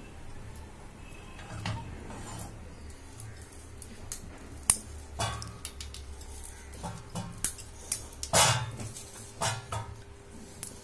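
Metal clicks and knocks from a hand-cranked screw-type idiyappam press as its threaded screw is turned to force steamed rice dough out through the die. The knocks come irregularly, with a cluster of louder ones about eight seconds in.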